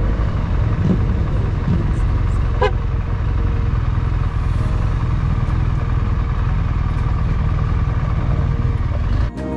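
Motorcycle engine running at road speed with wind rushing over the bike-mounted camera, a steady low rumble and hiss. A short high chirp sounds once about three seconds in.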